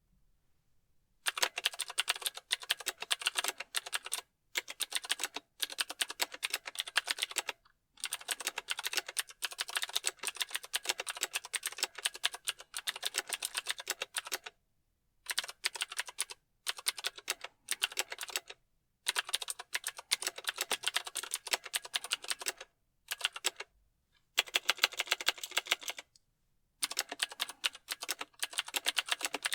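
Mechanical keyboard typing: rapid runs of crisp key clicks in bursts of a few seconds, broken by short pauses.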